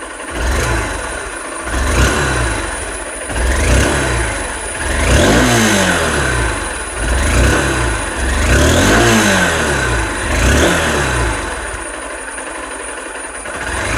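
2023 Honda Unicorn 160's single-cylinder engine heard at the exhaust: idling, then revved in a series of short throttle blips, each rising and falling back to idle, the last one near the end. The revs stay in the low and middle range.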